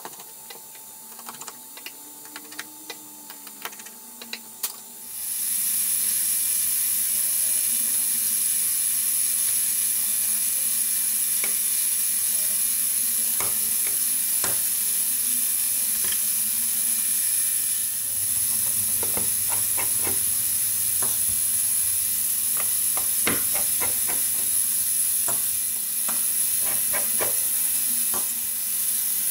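Small scattered clicks and taps of a screwdriver and spudger working on an iPhone 6's internals, unscrewing shield-plate screws and prying off flex-cable connectors. About five seconds in, a loud steady hiss with a thin high whine sets in underneath and stays.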